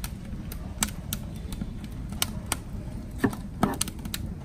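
Knife cutting through enoki mushrooms onto a cutting board: irregular sharp taps, with two louder knocks about three seconds in.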